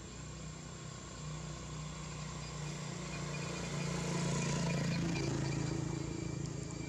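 A motorcycle pulling a cart drives past. Its engine note grows louder to a peak about four to five seconds in, then drops in pitch and fades a little as it goes by.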